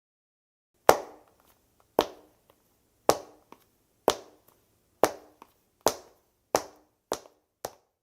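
Footsteps of hard-soled dress shoes, a sharp heel click about once a second starting about a second in, each with a short ring after it. Near the end the steps come quicker and grow fainter.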